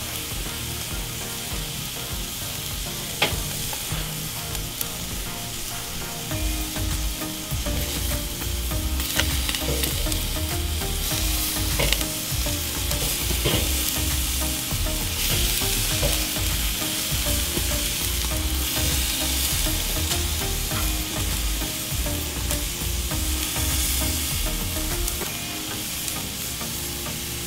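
Chicken sizzling steadily on the grate of a charcoal kettle grill, with a few sharp clicks. A low rumble comes in about six seconds in and fades near the end.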